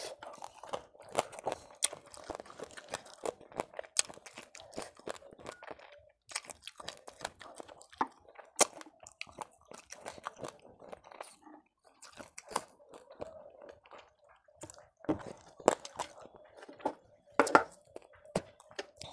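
Close-miked chewing of fish curry, with many irregular sharp crunches as a fish head and its bones are bitten and chewed.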